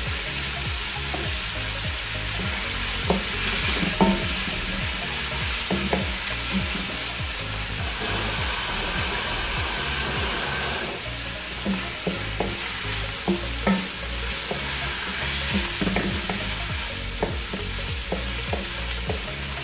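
Chicken, onion, garlic and freshly added raw shrimp sizzling as they stir-fry in a large wok. A wooden spatula stirs them, with short scrapes and taps against the pan every second or so.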